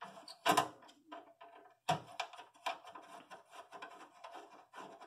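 Screwdriver backing a small screw out of the audio pass-through board's mounting in a PC's metal case: a run of faint, quick clicks and scrapes, with a louder knock about half a second in and another near two seconds.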